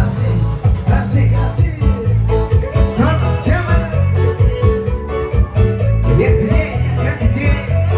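Loud live cumbia band music, amplified, with a heavy repeating bass line under a melody and a regular percussive beat.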